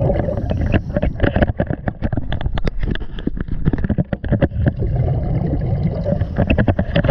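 Water sloshing and bubbling against a GoPro held underwater, heard muffled through its waterproof housing: a constant low rumble with many quick pops and clicks.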